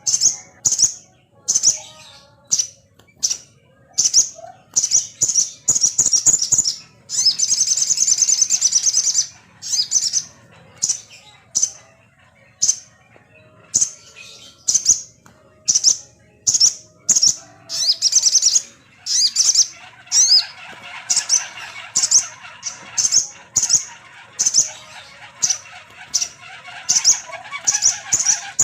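Crested jay (sogon) calling: short, high, rattling notes repeated about once or twice a second, with a longer unbroken run of rattling about a quarter of the way in. From about two thirds of the way through, a lower chattering runs beneath the calls.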